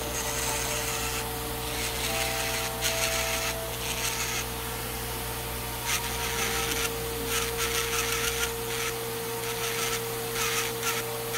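Electric nail drill running with a steady whine, its bit grinding down a thick fungal toenail in short, irregular passes of rasping noise.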